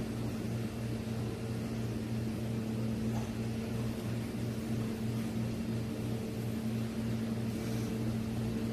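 A steady low mechanical hum with a slight regular pulsing in its lowest tone.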